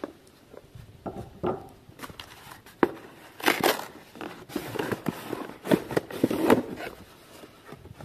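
Cardboard shipping envelope being cut and torn open with a pocket knife: irregular scraping, tearing and crinkling of the cardboard, with a sharp click a little under three seconds in and the densest tearing in the second half.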